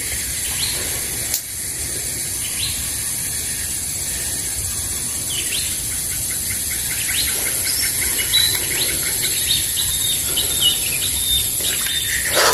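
Birds chirping with short, repeated calls that grow busier in the second half, over a steady high-pitched insect drone.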